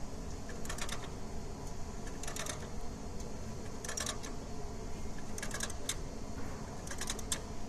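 Five short bursts of rapid light clicking, about one every one and a half seconds, over a steady low hum.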